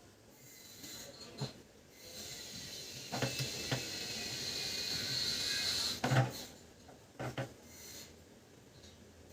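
Light clicks and knocks of plastic printer parts being handled as a Brother MFC-7360's main motor gear unit is fitted, about five in all. A steady hiss runs from about two and a half seconds in to about six seconds.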